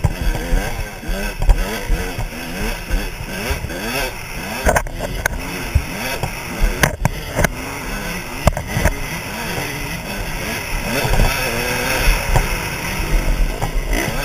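KTM 200 SX two-stroke dirt bike engine revving up and down over and over, heard from the rider's helmet. A few sharp knocks come from the bike hitting bumps and rocks, with wind buffeting the microphone.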